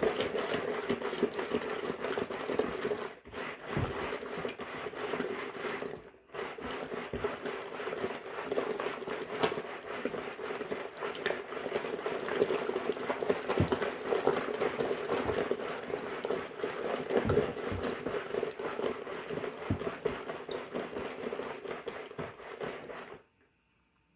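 Small washing machine running its wash cycle, a steady motor hum with water and clothes churning. It drops out briefly twice early on and cuts off suddenly near the end.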